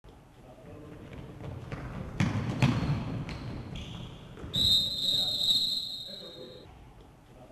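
Handball bouncing and thudding on a sports-hall floor, then a referee's whistle blown in one long, steady blast of about two seconds. The whistle stops play for the goalkeeper's collision with an attacker outside the goal area.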